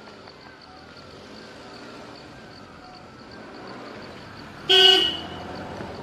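A single short, loud honk with a clear pitch about five seconds in. Under it is a faint, even ticking and a few faint falling chirps.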